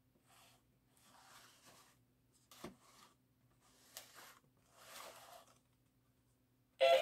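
Soft hissy rustling in short bursts with two light clicks, over a faint steady hum. Near the end the animated Santa figure's music starts loudly.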